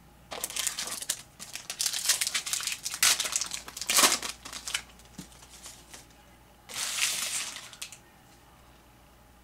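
Wrapper of a pack of baseball cards crinkling and crumpling as it is opened, in dense bursts for about five seconds, then one more short crinkle near the end.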